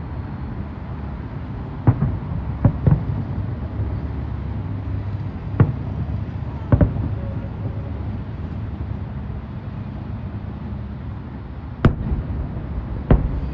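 Aerial firework shells bursting: about eight sharp bangs at irregular intervals, some in quick pairs, over a steady low rumble.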